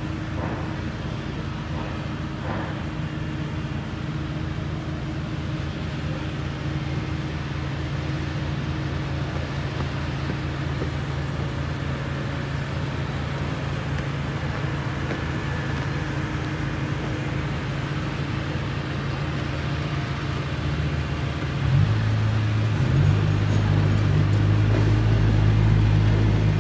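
Heavy diesel construction machinery running steadily: a crawler dozer and a road roller working on site. About three-quarters of the way through, the engine sound grows louder with a deeper rumble.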